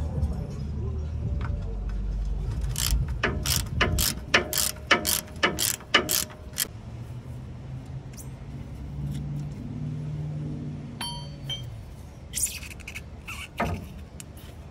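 Hand socket ratchet clicking on a sway bar bushing bracket bolt, a run of about a dozen sharp clicks for several seconds. A faint metallic ping and a few more clicks follow near the end as the steel bracket is handled.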